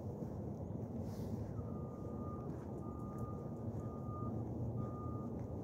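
A vehicle's reversing alarm beeping: a single steady high tone that starts about a second and a half in and repeats roughly once a second, over a low steady rumble.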